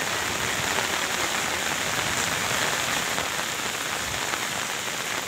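Heavy rain falling steadily on a wet paved road and roadside grass, an even, unbroken hiss.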